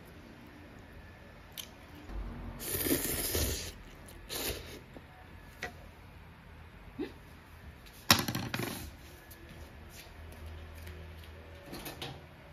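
Small handling sounds at a pot of instant ramen: a few brief scrapes and rustles, then a sharp clack about eight seconds in.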